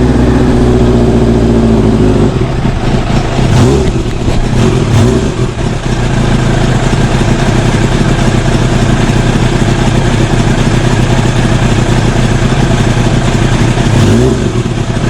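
1988 Kawasaki ZX-10's inline-four engine running: the revs drop back in the first couple of seconds, a few brief rises in engine speed come around four to five seconds in and once more near the end, and otherwise it idles steadily.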